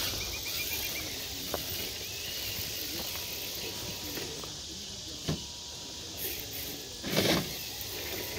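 Quiet outdoor night ambience: a steady high hiss, with a few faint clicks and a short rustle about seven seconds in.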